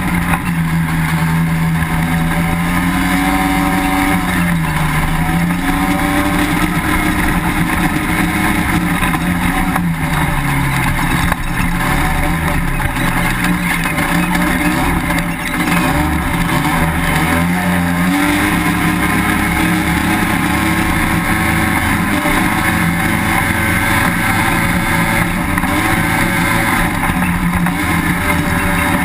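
Sand rail engine running hard across the dunes, its pitch dropping and climbing again several times as the throttle is eased and reapplied.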